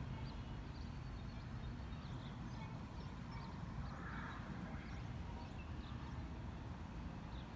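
Quiet outdoor ambience: a low, steady rumble with small birds chirping now and then.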